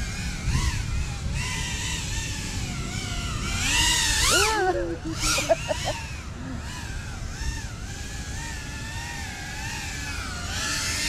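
FPV quadcopter motors whining, the pitch wavering up and down with the throttle, with a sharper rise and fall in pitch about four seconds in.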